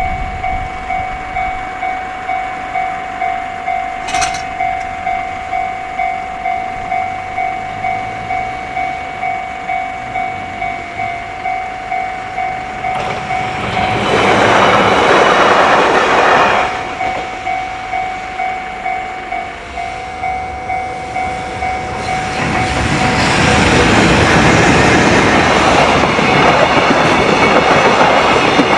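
Railroad level-crossing warning bell ringing, a steady electronic ding repeating about one and a half times a second. Trains pass over the crossing twice: briefly about 13 seconds in, and again from about 23 seconds in, when the rumble of the cars takes over.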